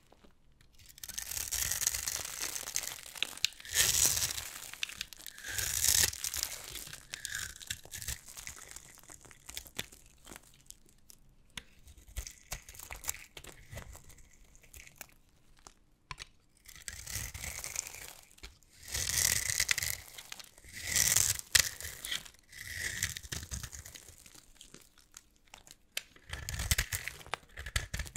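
Dry, starch-filled soap crunching and crumbling under pressure, in bursts of a second or two with quiet gaps between.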